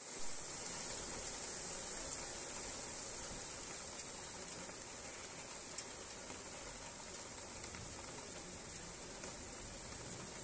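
Rain falling steadily on a paved car park, a constant even hiss. A single sharp click comes about six seconds in.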